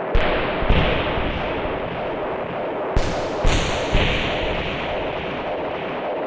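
Dark film-score music: a dense, sustained texture struck by heavy percussive hits, five of them in the first four seconds.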